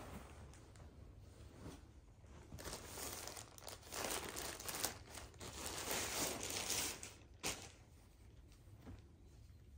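Frosted plastic garment bag crinkling loudly as it is handled and opened and the garment is pulled out, over a few seconds in the middle, ending with a short sharp crackle. Softer rustling of fabric before and after.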